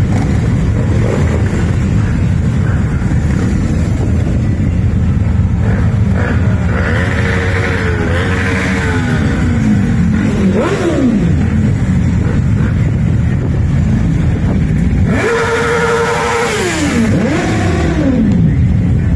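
A procession of motorcycles riding past one after another, their engines making a steady low rumble. Twice a single bike's engine note rises and holds, then drops away in pitch as it passes close by.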